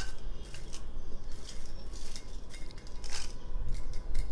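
Dry roasted red chillies dropped by hand into a small blender grinder jar, giving light irregular ticks and clinks as they land, the sharpest right at the start and about three seconds in, over a steady low hum.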